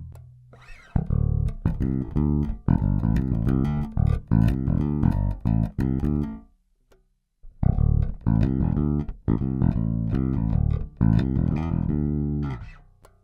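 Cort Space 5 headless five-string electric bass with Bartolini MK-1 pickups, played unaccompanied with both pickups on and the EQ flat. It plays two phrases of plucked notes with a pause of about a second near the middle. This is an active-versus-passive comparison, in which the volume and tone barely change.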